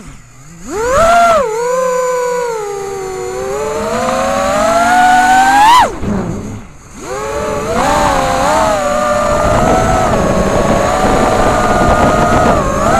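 FPV quadcopter's brushless motors and propellers whining, the pitch rising and falling with the throttle. The whine jumps up about a second in, climbs steadily to a peak just before six seconds, drops away sharply, then picks back up about a second later and wavers along at a steady level.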